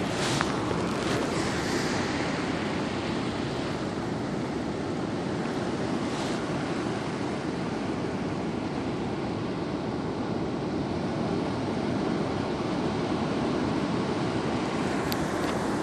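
Sea surf washing onto the beach: a steady rush of breaking waves with a few brief hissing swells.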